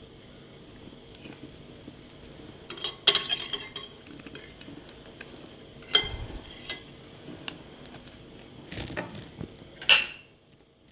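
Metal clinks and clatters of a hand-held lemon squeezer knocking against a glass bowl and steel spoons as lime halves are squeezed over the chicken; the sharpest clatters come about three seconds in and just before the end, with smaller ones around six and nine seconds.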